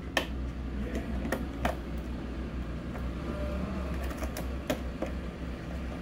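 Plastic clips of an HP all-in-one PC's front screen panel clicking and snapping as the panel is pried off its back housing with a flat spudger: several sharp clicks at irregular intervals.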